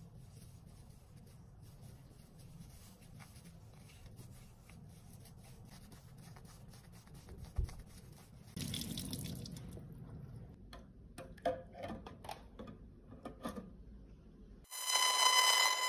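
Wet makeup sponge squeezed and rinsed in gloved hands over a steel sink: faint squelching and water, with a short rush of water about eight seconds in and small wet squelches after it. Near the end a loud steady buzz with a high hum starts: an ultrasonic cleaner running.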